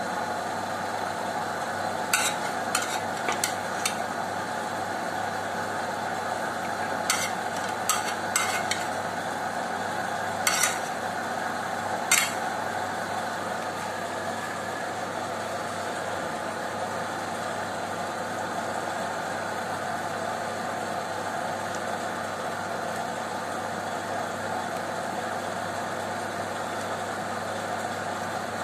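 A spoon knocking and scraping against a frying pan as chicken adobo and gizzards are stirred, with scattered sharp knocks over the first twelve seconds, the loudest near the end of the stirring. Under it the sauce simmers and sizzles steadily.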